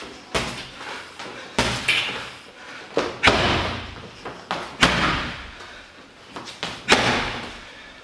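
Gloved punches and kicks landing on a Silhouette heavy boxing bag: about half a dozen hard, irregularly spaced thuds with lighter hits between, each one echoing.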